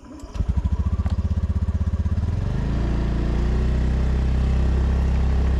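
Vehicle engine running, with a fast even throb at first; about two seconds in its pitch rises and it settles into a steadier drone, as when pulling away.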